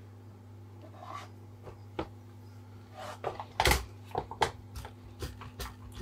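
Clicks and knocks of parts and tools being handled while a seized garden multi tool is taken apart, over a steady low hum. There is one sharp knock about two seconds in, then a busier run of clatter in the second half.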